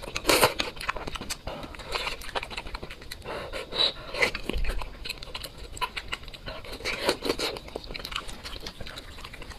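A man eating from a pot of spicy soup with chopsticks: loud slurps of noodles at the start, then smacking and chewing mouthfuls, with open-mouthed panting in between from the chilli heat.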